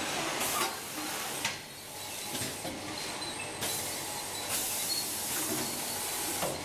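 Bottle shrink-wrapping machine running: steady mechanical noise broken by a few short hisses.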